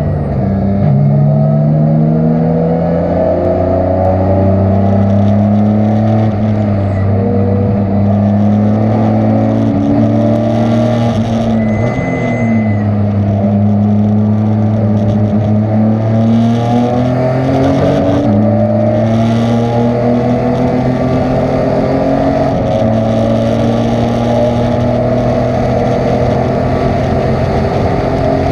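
Race car engine at racing speed under load, its pitch climbing slowly and dropping sharply a few times as the driver shifts or lifts for corners.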